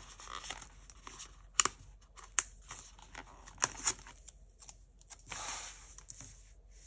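Stickers and paper being handled on a desk: a few sharp clicks and taps, and a short rustle a little after five seconds in.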